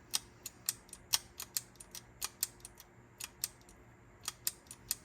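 A rapid, uneven series of light mechanical clicks from a Sony TC-K777ESII cassette deck's head-carriage and lever mechanism as it is worked, over a faint steady hum.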